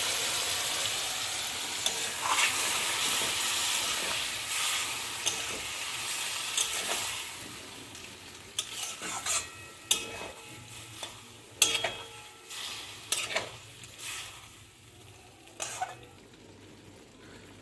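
Spice masala of onion, tomato and chilli sizzling in oil with a splash of mutton stock while it is stirred and fried down (kosha). The sizzle fades after about seven seconds, leaving scattered scrapes and knocks of the spatula against the pan.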